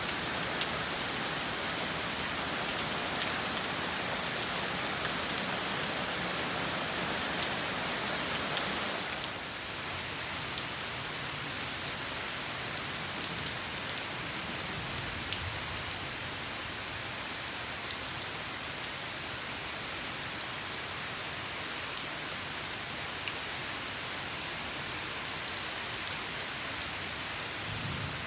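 Steady rain falling on a surface, a dense even hiss with individual drops ticking sharply now and then; the rain eases slightly about a third of the way in.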